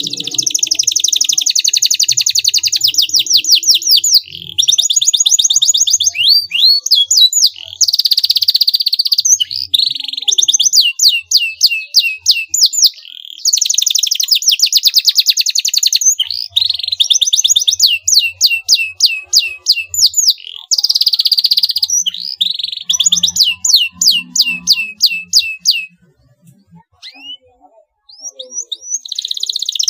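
Canary singing loudly: long runs of rapid trills and rolling phrases, a few seconds each with short breaks between them. It falls quiet for a moment near the end, then starts again.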